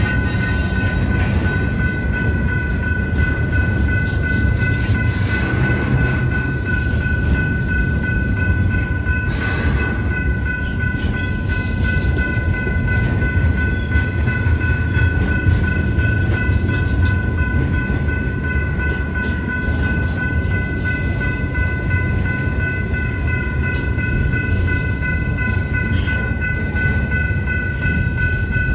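Double-stack intermodal freight train rolling past a road crossing: a steady low rumble of steel wheels on rail. Several steady high ringing tones sit above the rumble, and there is one sharp clank about nine seconds in.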